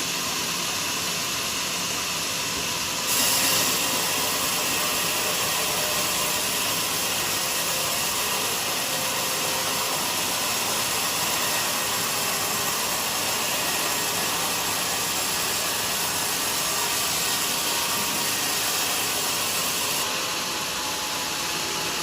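Portable band sawmill running with a steady hiss; it grows louder and brighter about three seconds in and drops back near the end, as the blade works through a teak log.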